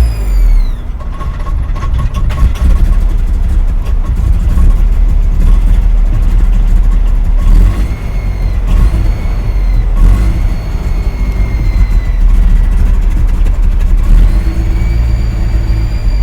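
A car engine running loudly and unevenly while the gas pedal is pumped, its revs climbing and falling away several times. It is a hard-starting engine that keeps threatening to stall.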